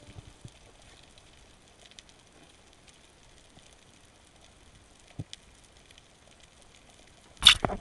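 Faint underwater crackling and hiss from a reef, picked up by a GoPro camera in its waterproof housing, with a few small clicks. A short, loud burst of noise comes near the end.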